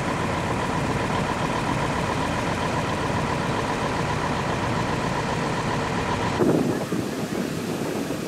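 Heavy diesel lorries running at low speed as they pull away, a steady engine sound with a thin high whine over it. About six seconds in it cuts to quieter, more distant truck traffic.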